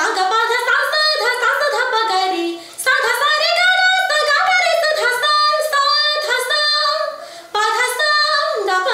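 A woman singing unaccompanied in long, ornamented melodic phrases, with short breaks between phrases about three and seven and a half seconds in.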